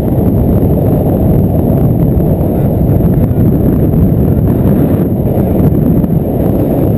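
Steady, loud wind rushing over the camera's microphone as a paraglider flies, a low rumble with no break.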